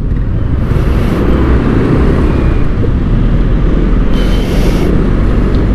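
Yamaha Aerox scooter under way in traffic: steady engine and road noise with a heavy low rumble of wind on the helmet-mounted camera's microphone.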